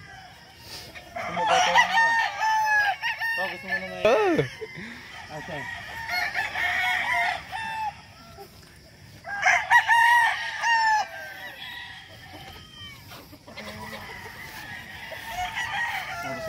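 Gamefowl roosters crowing, several calls one after another and overlapping, in bouts a few seconds apart across the flock.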